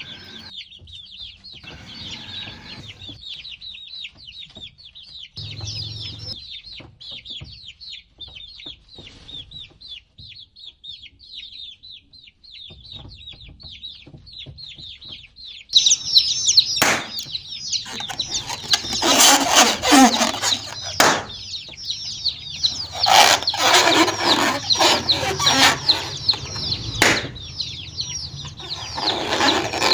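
A brood of baby chicks peeping continuously, many short high chirps overlapping. About halfway through the sound gets much louder, with sharp knocks and rustling among the peeping.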